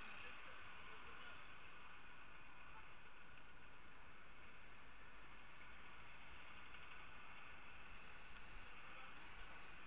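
Faint, steady street-traffic and riding noise from cycling among cars: a low rumble with an even hiss and no distinct events.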